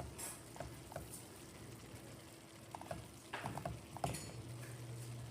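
Sautéed greens sizzling faintly in a pan, with a few short, high squeaks scattered through, most of them about three to four seconds in.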